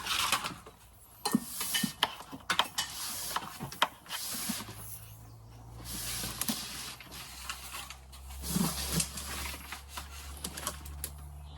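Hands working with a boat's throttle and gear-select control cable: repeated rubbing, sliding swishes of the cable with scattered sharp clicks and knocks. A faint low hum comes in about halfway through.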